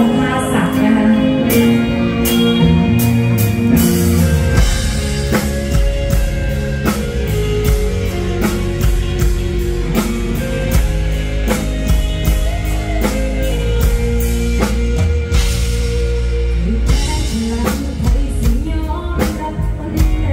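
Live band music through a PA: drum kit keeping a steady beat under electric bass and electric guitar, in an instrumental passage.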